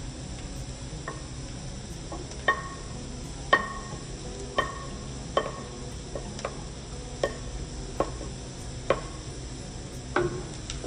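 Wooden spoon knocking minced garlic out of a ceramic bowl: about ten sharp knocks, each with a short ringing note, roughly a second apart. Under them, onions sizzle steadily in oil in the pan.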